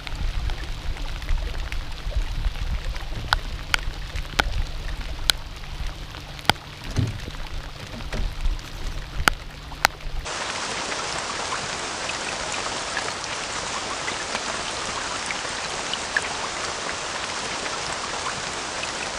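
Rain. For about the first ten seconds, separate drops tick sharply close by over a low rumble. Then it switches abruptly to a steady, even rain hiss.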